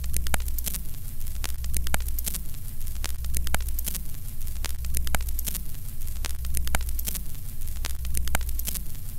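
Old-film countdown leader sound effect: a steady low hum under crackle and scattered clicks, like a worn film running through a projector, with a falling sweep repeating about once a second as the numbers count down.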